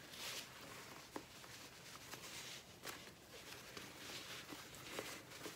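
Faint rustling of cotton fabric being handled and pulled through a cut opening, with a few soft clicks scattered through it.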